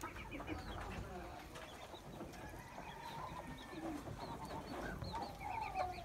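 Poultry calling in a Muscovy duck pen: runs of short, high chirps repeated several times a second, over lower calls.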